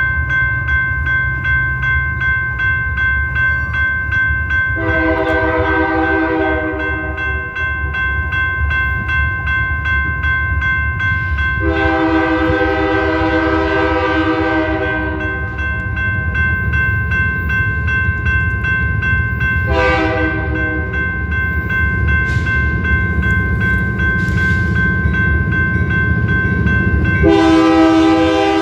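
BNSF diesel locomotive's air horn blowing the grade-crossing signal: two long blasts, a short one, then a final long blast starting near the end. Under it a railroad crossing's warning bell rings steadily the whole time.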